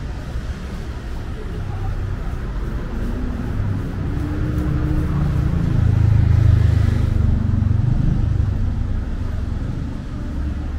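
A motor vehicle passing close by: its low engine sound swells to a peak about six seconds in, then fades away.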